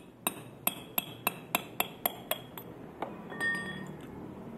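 Metal parts of a Honda power-steering rack's pinion shaft and valve housing clinking sharply as they are worked apart by hand, about three or four clicks a second, with a brief ringing clink about three and a half seconds in.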